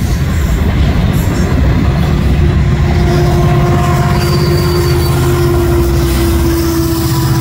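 Freight train rolling by close at speed: loaded hopper cars' wheels rumbling and clacking over the rails, then a Union Pacific diesel locomotive coupled in behind the cars passes with its engine running. A steady high whine joins the rumble from about two seconds in.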